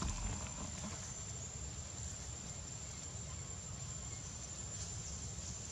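Outdoor ambience: a steady, high-pitched insect drone over a low rumble and hiss, with no monkey calls.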